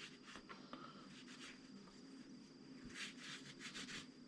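Faint handling noise from a pair of steel shears being held up and moved, soft rubbing with light clicks, a little louder about three seconds in, otherwise near silence.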